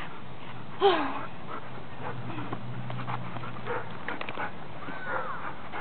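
Dog giving a sharp cry that falls in pitch about a second in, then high whines near the end.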